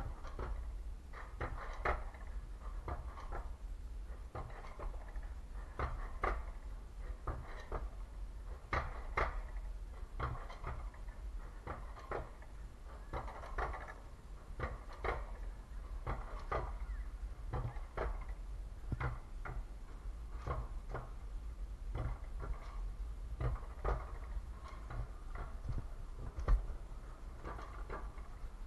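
Alpine coaster sled running down its metal rail track: a steady low rumble with frequent irregular clicks and knocks from the wheels and car over the track.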